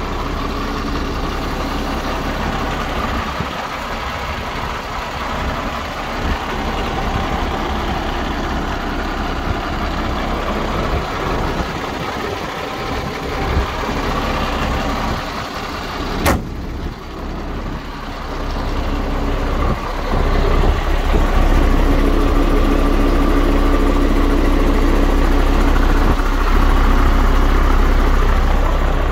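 MAN TGS 26.440 truck's diesel engine idling steadily. It gets louder about two-thirds of the way through, heard from beneath the truck near the exhaust, and there is a single sharp click near the middle.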